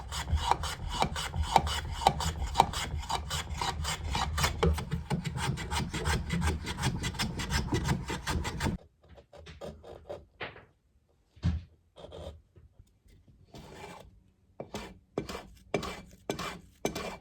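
A rasp stroking across elm, shaping a curve into a box lid by hand, in fast even strokes of about four to five a second. The run stops abruptly about nine seconds in and gives way to slower, quieter, separate strokes.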